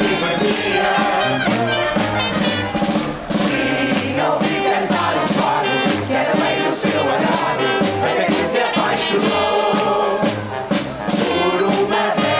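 A Lisbon marcha popular song: a brass band playing over a steady march beat, with the marchers singing together in chorus.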